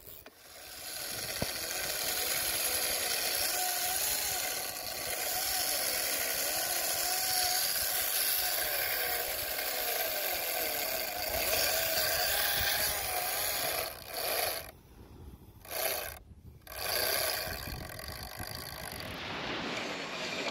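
Big-game fishing reel giving line under load, a sustained whirring whine that wavers in pitch while a hooked shark pulls. It stops briefly twice in the last third.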